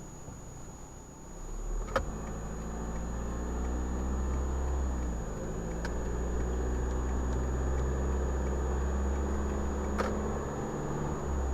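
A car's engine and road noise heard from inside the moving car. The engine grows louder about two seconds in, then runs steadily with small shifts in pitch. Sharp clicks come at about two, six and ten seconds, over a thin steady high whine.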